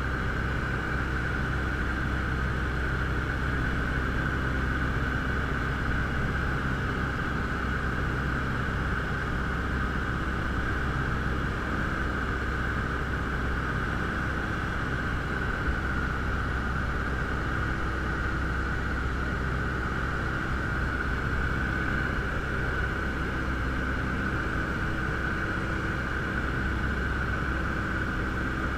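Robin DR400 light aircraft's piston engine and propeller running steadily in cruise flight, heard from inside the cockpit.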